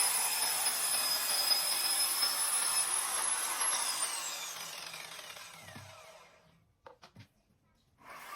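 Electric cutting saw for plastic panels running at speed with a high whine, then switched off about four seconds in and winding down, its pitch falling until it stops. A couple of light knocks follow near the end.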